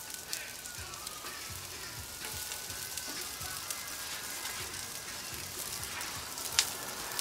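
Sliced onions sizzling steadily on a hot flat-top griddle just after being poured on, with a sharp tick about six and a half seconds in.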